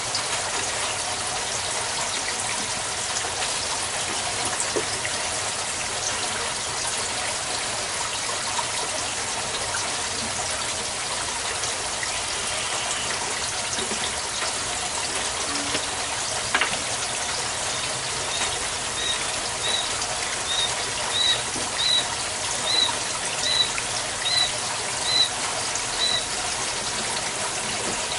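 Aquaponics water pouring steadily from a PVC return pipe into a grow bed of lava rock. In the second half a bird calls about ten short, evenly spaced chirps.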